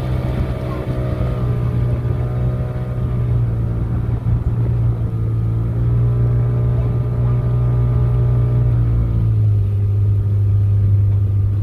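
Motorboat engine running steadily, its pitch stepping down a little about nine seconds in as it slows.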